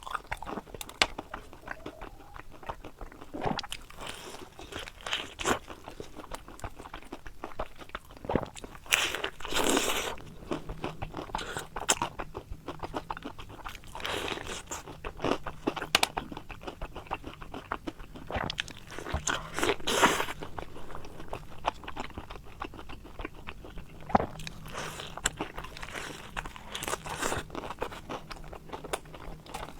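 Close-up crunching and chewing of battered, deep-fried eggplant boxes. A crisp bite comes every five seconds or so, with chewing in between.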